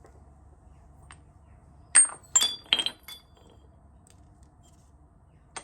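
Metal tools or parts clinking together: a quick run of about four sharp, ringing clinks about two seconds in, then a few faint ticks.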